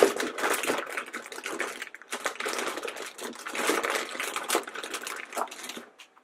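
Plastic blind-bag packets crinkling and rustling as a hand rummages through a bin of them, an irregular crackle with many small clicks, easing off briefly about two seconds in and stopping near the end.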